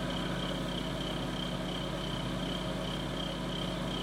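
Steady background hum of a running machine or electrical device, with a thin high whine over it and no change in level.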